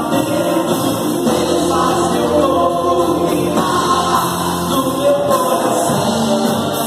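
A church worship band rehearsing a gospel song: several voices singing together over instrumental accompaniment.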